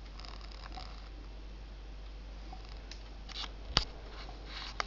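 Faint crackling fizz of fermenting grape and apple wine in a glass carboy, in short scattered clusters, with a few sharp clicks, the loudest about four seconds in. A steady low hum runs underneath.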